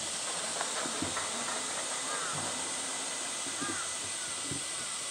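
Steady, even high-pitched hiss of a summer cicada chorus, with short chirping calls and faint distant voices mixed in.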